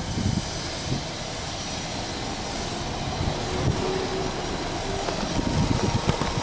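Subaru Legacy B4 2.0GT's turbocharged EJ20 flat-four engine idling steadily, a low even running sound.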